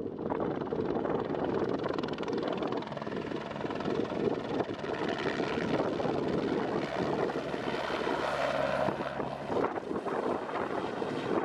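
Search-and-rescue helicopter flying low overhead, its rotor chop and engine running steadily as it passes.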